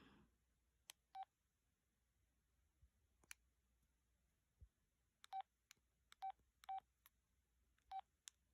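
Keypad beeps of an LG LX1200 flip phone as its buttons are pressed: five short, identical beeps, one a second or so in and four close together in the second half, with a few faint clicks of the keys between them.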